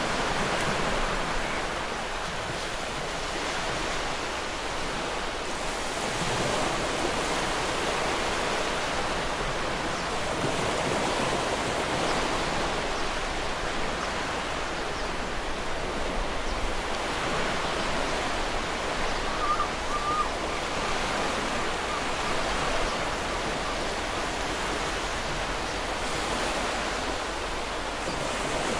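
Surf washing onto a beach, a steady wash of noise that swells and eases, with one brief bird call about two-thirds of the way through.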